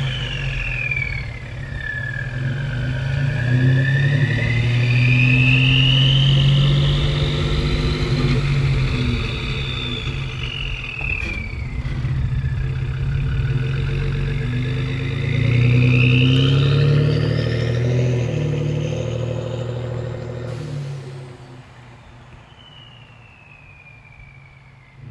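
Ford F-150 3.5L EcoBoost twin-turbo V6 with an aftermarket turbo whistle package and stainless cat-back exhaust, revving under the exhaust note while a high turbo whistle rises and falls with engine speed, twice. Near the end the engine drops much quieter and the whistle falls away as the turbos spool down.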